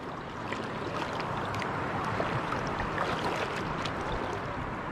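Shallow sea water lapping and washing around a wading angler in a steady hiss, with a few faint ticks.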